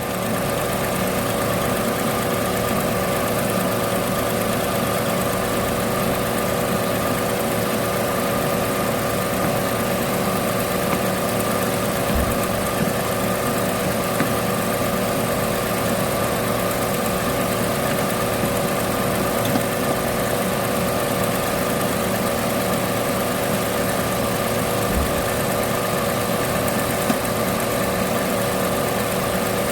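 Car engine idling steadily with a constant hum, running with the air conditioning on as is done while the A/C system is charged with refrigerant.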